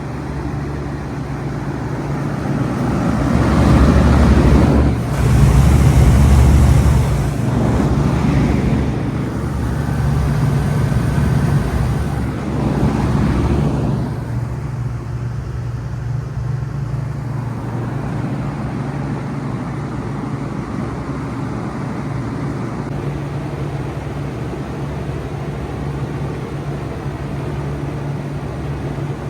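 Bard 4-ton wall-hung heat pump running in cool mode, a steady low hum. During the first half a louder rushing noise swells and fades, loudest a few seconds in.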